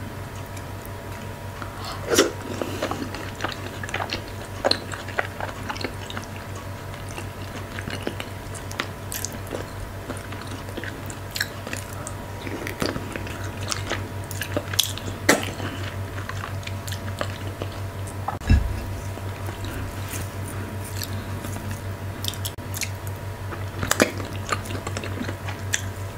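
Close-miked eating of fufu and okra stew by hand: wet chewing with scattered mouth clicks and smacks, a few of them louder, and one low thump about two-thirds of the way through. A steady low hum runs underneath.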